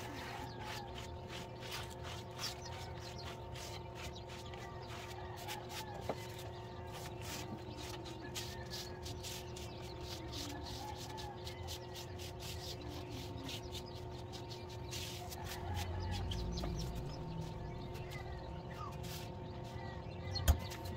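Sponge scrubbing and wiping inside a foil-lined wooden egg hatcher cabinet: light rubbing with many small clicks and knocks, over a steady hum with several fixed tones and faint chirping. One sharp knock near the end.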